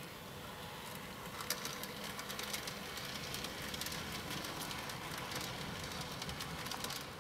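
N gauge model train, a Graham Farish Class 47 locomotive with Mark 2 coaches, running along the layout track: a steady rolling whirr with many light clicks, louder from about a second in.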